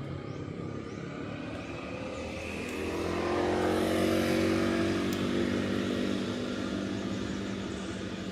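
Engine of a passing motor vehicle, growing louder toward the middle and fading again.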